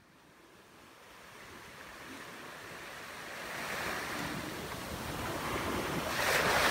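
Small waves washing up on a sandy beach, fading in from silence and growing steadily louder, with a wave swelling about three and a half seconds in and another near the end.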